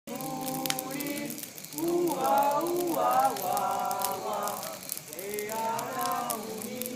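Several voices chanting in long, drawn-out tones that overlap, over a steady scatter of small sharp crackles.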